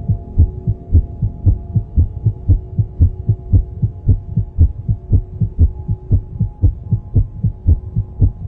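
Soundtrack sound design: a low heartbeat-like double thump, about two beats a second, over a steady droning chord.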